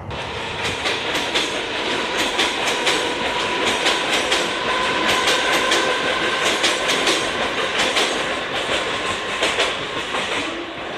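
Express passenger train hauled by a WAP-4 electric locomotive running past at speed, its wheels clattering over rail joints in a fast, irregular clicking, with a faint steady whine through it.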